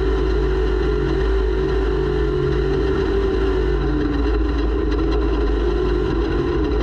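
Racing snowmobile's engine running hard at steady high revs, with a heavy low rumble beneath it; the engine note dips slightly about four seconds in.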